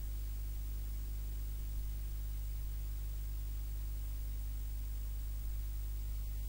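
Steady electrical mains hum with a layer of hiss, with no other sound on top.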